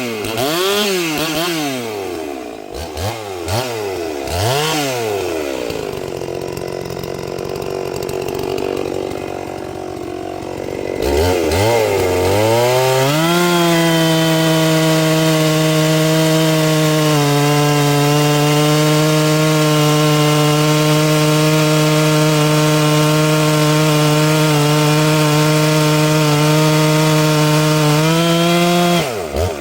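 Holzfforma G366 two-stroke chainsaw blipped up and down a few times. It then runs at full throttle with a steady high pitch through a long cut in oak, dropping a little under load partway through. Near the end it flares up briefly, then the throttle is released.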